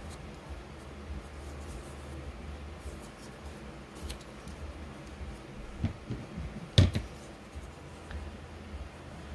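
Scissors trimming the edge of a paper-covered clear plastic bag, quiet snips and handling over a steady low hum, with a single louder knock about seven seconds in.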